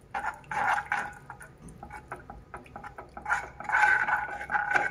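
Steel spoon stirring a thin milk-and-flour white sauce in a non-stick pan, scraping and tapping against the pan bottom with a wet slosh. About three seconds in, the scraping turns steadier and takes on a faint ringing tone.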